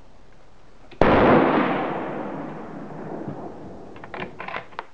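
A single shot from a Winchester Model 70 Heavy Varmint bolt-action rifle in .22-250 about a second in, its loud report followed by a long echo that dies away over a couple of seconds. Near the end comes a quick run of metallic clicks as the bolt is worked to cycle the spent case.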